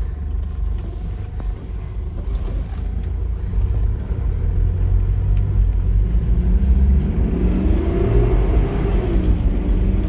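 Mitsubishi Pajero Full SUV driving on a dirt road, heard from inside the cabin: a steady low rumble of engine and tyres. The engine note climbs as it speeds up from about six seconds in, then dips briefly near the end.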